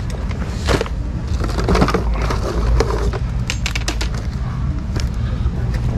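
A shrink-wrapped plastic paint roller kit being handled: the wrap crinkles and the tray clicks and knocks irregularly, over a low rumble.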